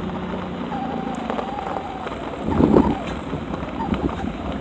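A dog whining inside a car, with one long steady whine from about a second in, then a louder short burst of noise near the middle, over the low rumble of the car.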